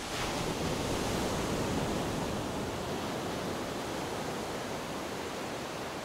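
Steady rushing, surf-like noise with no tones or rhythm in it, a little louder in the first couple of seconds and then easing slightly.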